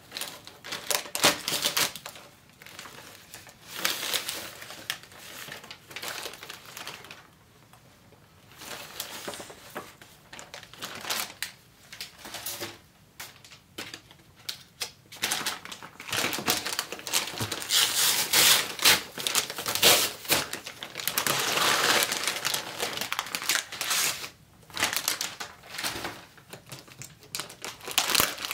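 Plastic packaging rustling and crinkling as a poly mailer and a clear plastic bag are handled, mixed with light clicks and taps of boxes on a desk. It is quieter in the first half and louder and busier in the second half.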